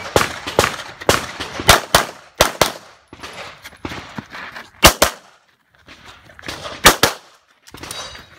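Handgun shots fired on an IPSC stage: a fast string of shots in quick pairs through the first three seconds, then single shots about five and seven seconds in.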